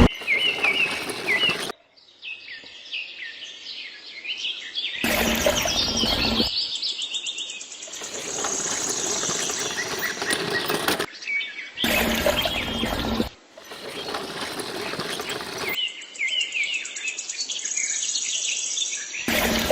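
Small birds chirping in repeated quick, falling chirps, the sound cutting abruptly in and out between edited segments. Twice, a second or so of loud noise briefly covers them.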